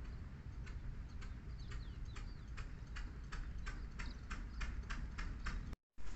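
A steady run of sharp ticks, about two to three a second, growing a little louder toward the end, with a couple of short falling chirps in the middle, over a low rumble. The sound cuts out briefly just before the end.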